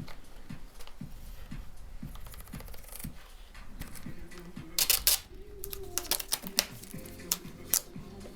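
Handling noises as material is fitted by hand: sharp clicks and crinkling rustles, the loudest about five seconds in and a few more after. Soft background music runs underneath.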